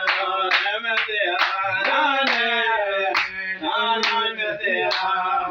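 Men singing a gospel song while hands clap on the beat, about two claps a second.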